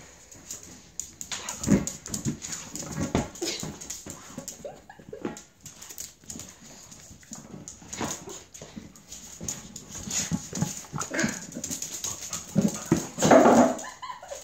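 Small dog whining and yelping in irregular excited bursts, mixed with scattered knocks; loudest just before the end.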